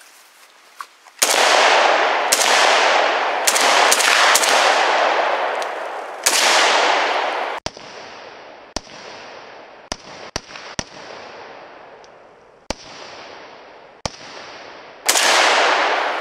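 Arsenal AK-pattern rifle in 7.62×39 firing about a dozen semi-automatic shots at an uneven pace, each shot trailed by a long echo that fades off over a second or more.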